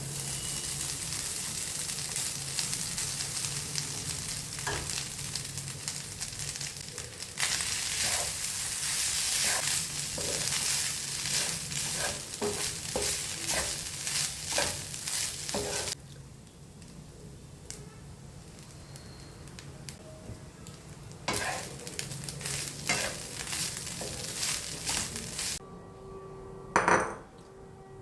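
Food sizzling in a hot pan while being stirred, with many quick knocks and scrapes of a utensil against the pan. The sizzle cuts off suddenly about halfway through and comes back for a few seconds later, followed by a single loud knock near the end.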